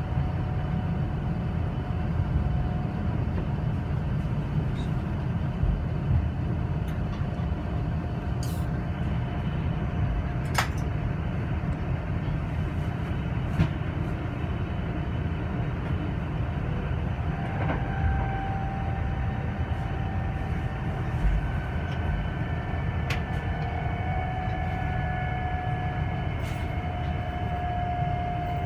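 Running noise inside a Kintetsu Ise-Shima Liner (23000 series) limited-express car on the move: a steady low rumble from the wheels and track, with a few scattered clicks. Past the halfway point, faint steady whining tones join the rumble.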